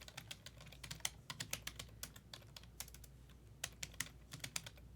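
Typing on a computer keyboard: quick, irregular, quiet key clicks, several a second.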